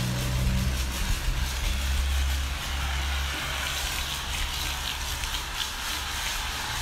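A motor running steadily: a low hum that weakens about three seconds in, under a continuous hiss that grows stronger in the second half.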